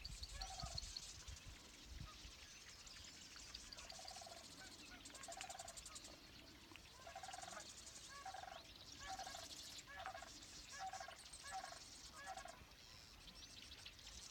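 Sandhill cranes calling faintly, a string of short rolling calls that come in quicker succession, about once or twice a second, through the second half.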